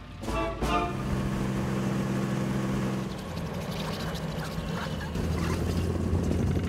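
Two short honking tones, then a vehicle engine running steadily. About three seconds in this gives way to a tracked over-snow vehicle driving through deep snow, its engine running under a rough, clattering noise.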